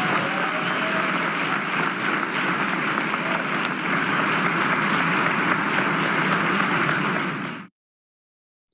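Audience applauding steadily, cutting off abruptly near the end.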